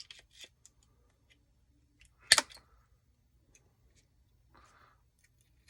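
A metal lead on a battery pack's connection tab being cut through: one sharp snip a little over two seconds in, with a few faint handling clicks around it.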